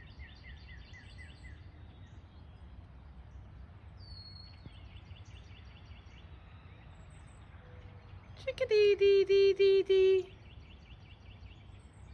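A chickadee calls a faint chick-a-dee-dee-dee twice, each a high note followed by a quick string of short buzzy notes. Past the middle, a person loudly calls out a sing-song chickadee-dee-dee-dee imitation, about six notes, to bring the bird in.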